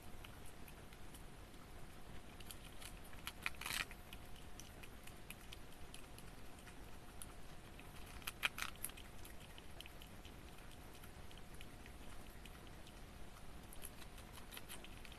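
Richardson's ground squirrel chewing lettuce: faint, rapid crunching clicks, with two louder bursts of crunching about three and a half and eight and a half seconds in.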